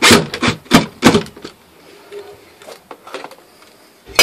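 Cordless drill driving the letterbox's fixing screws into the wooden door in a few short bursts during the first second or so. Light handling noises follow, then a single sharp click near the end.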